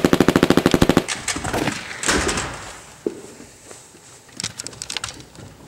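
Rapid-fire machine-gun sound effect dubbed over a Nerf blaster, a fast even string of shots that stops about a second in. Quieter rustling and clicks follow, with a short run of faint quick clicks near the end.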